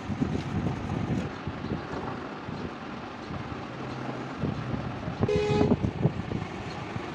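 A vehicle horn toots once, briefly, about five seconds in, over a steady low background rumble.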